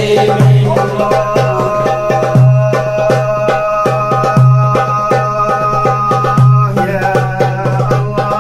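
Sholawat devotional music: held melody notes over busy hand-drum percussion, with a deep drum stroke about every two seconds.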